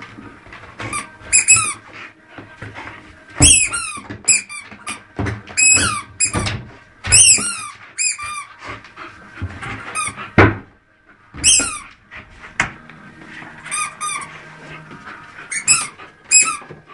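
A squeaky dog toy squeaking in short runs of quick squeaks as a dog chews and paws it. There are a couple of dull thumps, about three and a half seconds in and again near ten seconds.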